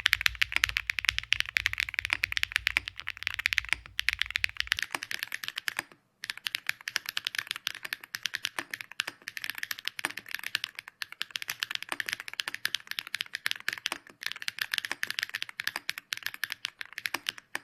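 Fast, continuous typing on a custom mechanical keyboard fitted with factory-lubed Keygeek B1 linear switches, with a rapid run of sharp keystroke clicks. It pauses briefly about four and six seconds in.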